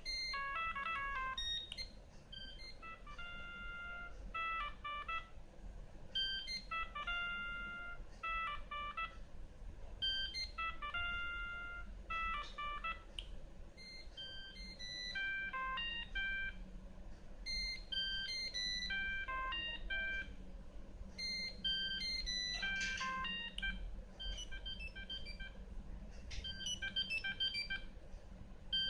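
Siemens M65 mobile phone playing a polyphonic ringtone melody through its small speaker: quick electronic notes in a short phrase repeated about every four seconds, changing to a different melody about halfway through.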